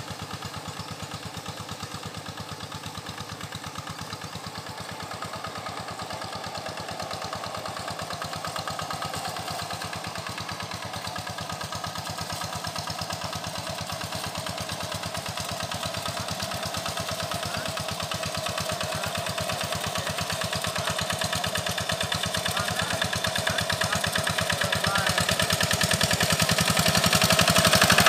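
Single-cylinder diesel engine of a Quick G1000 hand tractor running steadily with a rapid, even chugging as it works through a flooded rice paddy, growing steadily louder as it comes closer.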